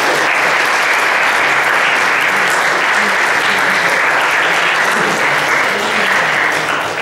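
A small audience applauding steadily, tapering off near the end.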